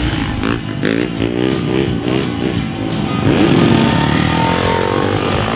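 Off-road racing motorcycle engines revving up and down, with background music playing over them.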